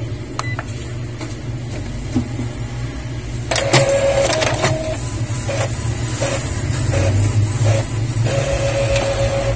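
Epson L5190 inkjet printer starting to print its network connection report: about three and a half seconds in, its motors start a whine that comes as a run of short passes, with a longer one near the end.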